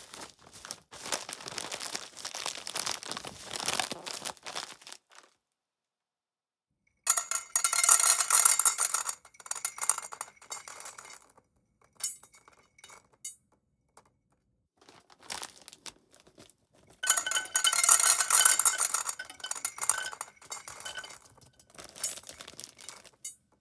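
Cat food being handled in a dish, clinking and rattling against the bowl. It comes in several bursts: a softer rattle for the first few seconds, then a louder, ringing clatter, a few short clinks, and a second long clatter, with silent gaps between.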